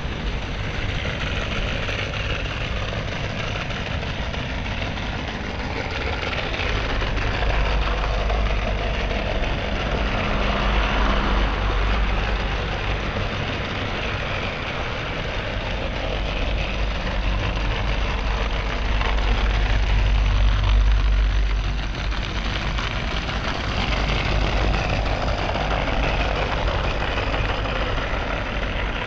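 Model train running on a layout track, a steady low mechanical rumble that grows louder in the middle and then eases off.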